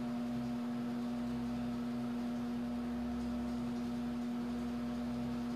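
A steady low hum, one strong tone with fainter overtones above it, over a faint hiss.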